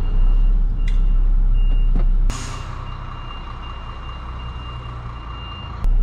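Reversing alarm of a MAN lorry beeping in a steady on-off pattern over the low running of its diesel engine, heard from inside the cab. About two seconds in there is a short burst of hiss, and the engine sound then drops much quieter while the beeping carries on, before the engine comes back loud near the end.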